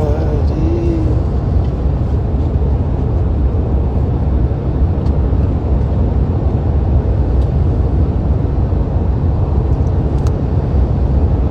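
Steady low rumble of a moving vehicle heard from inside the cabin: road and engine noise, even throughout.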